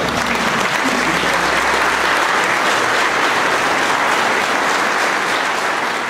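Audience applauding steadily, a dense wash of hand clapping that begins to fade near the end.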